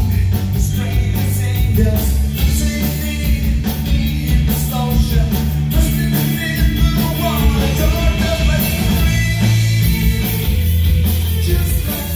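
Live rock band playing: drum kit, electric guitars and bass, with a male singer's voice over them.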